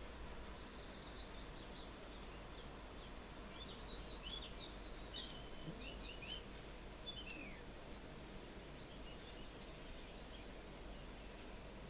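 European pied flycatcher singing faintly: a quick phrase of sweet, rising and falling whistled notes in the middle, with softer notes before it and a run of very high, thin notes near the end.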